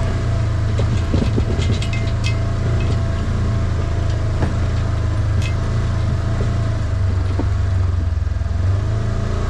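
Motor vehicle engine running steadily while driving, with a few light rattles and clicks.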